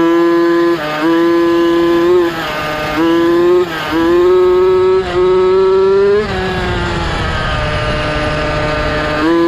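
Small two-stroke petrol engine of a Losi 5ive-T 1/5-scale RC truck, heard from on board, revving hard in bursts of about a second with short dips between as the throttle is blipped. About six seconds in it backs off to a quieter coast for about three seconds, then opens up again near the end.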